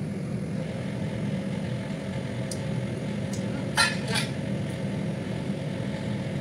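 A spoon clinking against the cooking pot, twice in quick succession about four seconds in, with a few lighter ticks around it, over a steady low hum.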